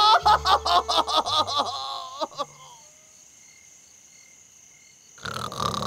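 A shouted cartoon voice fades away in repeating echoes over the first two seconds, leaving a faint chorus of crickets chirping. About five seconds in, a drawn-out vocal sound rises and falls in pitch.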